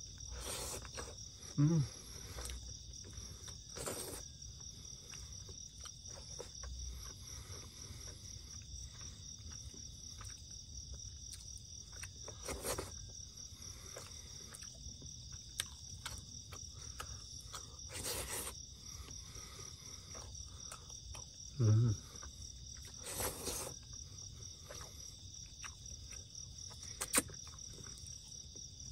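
Night insects chirring steadily at a high pitch, with occasional small clicks. Two brief low sounds stand out, one near the start and one about two-thirds of the way through.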